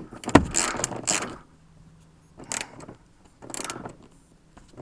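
Hand work on a car's interior handle and trim: a sharp click about a third of a second in, then scraping and rattling. Shorter scrapes follow twice later on.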